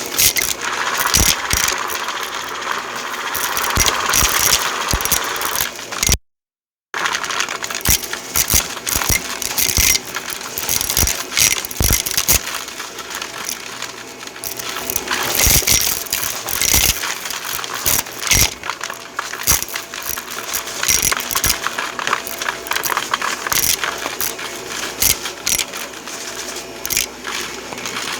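Dense, irregular rattling and crackling of many small hard objects, broken by a sudden silent cut about six seconds in.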